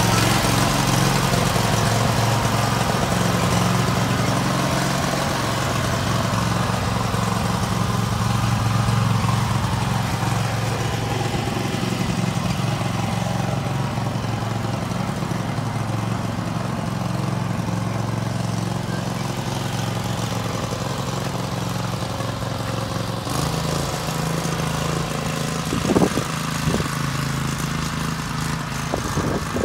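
Riding lawn mower's small engine running steadily with a low, even hum as it drives along; the tone shifts slightly a little over 20 seconds in, and there is a brief louder knock near the end.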